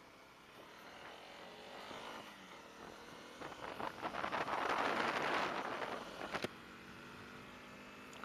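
Honda CRF250 Rally's single-cylinder engine pulling away and rising in pitch as the bike gets up to speed. Strong wind buffets the helmet microphone, loudest for a few seconds in the middle, then eases to a steadier rush.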